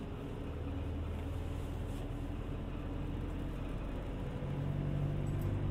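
Route bus running, engine hum and road noise heard from inside the passenger cabin. The engine note grows louder about four and a half seconds in.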